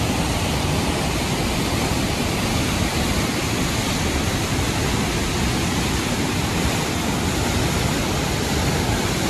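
Whitewater river cascading and churning through a narrow rock gorge: a loud, steady rush of water.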